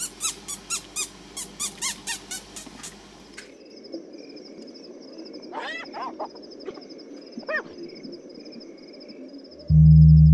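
Animal calls of the bush: first a quick run of sharp calls falling in pitch, about four a second. After an abrupt change comes a steady high pulsing trill with two or three falling calls over it. Near the end a loud, low steady tone starts suddenly.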